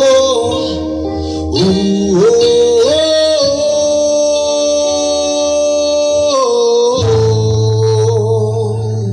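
A song with singing plays loud through a mini sound system's speakers set up in bridge mode: long held notes that slide from one pitch to the next, with a steady deep bass note coming in about seven seconds in.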